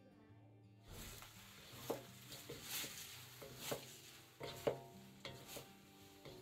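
Rice vermicelli and prawns sizzling in an aluminium wok, starting about a second in, while a wooden spatula stirs and tosses them, scraping and knocking against the pan several times.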